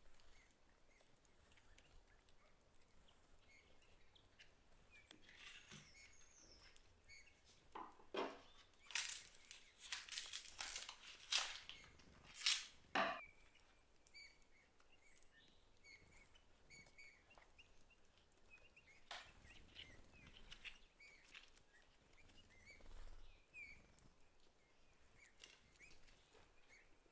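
Crackling and rustling of the paper wrapping around a plant's root ball being handled, in a cluster of sharp crackles from about eight seconds in that lasts several seconds. Faint bird chirps sound throughout.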